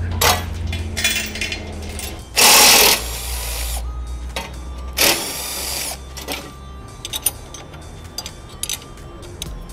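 Power tools at work on car bodywork. A steady low motor hum runs underneath, with a loud hissing burst about two and a half seconds in and a shorter one around five seconds, then scattered clicks and knocks.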